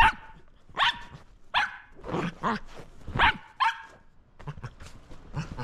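Shetland sheepdog barking in play: a run of about six sharp barks over the first four seconds.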